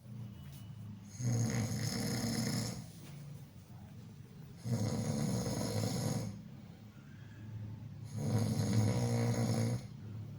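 Snoring: three loud snores, each about a second and a half long and about three and a half seconds apart, with quieter breathing sound between them.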